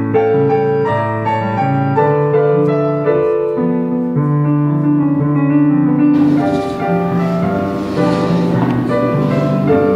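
Background piano music, a slow sequence of held notes and chords. About six seconds in, a steady hiss joins under the piano.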